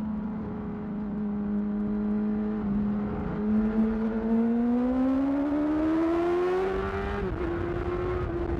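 2008 Yamaha R6's inline-four engine through a Termignoni exhaust, running steadily, then rising in pitch as it accelerates for about three seconds. About seven seconds in the pitch steps down slightly and holds steady.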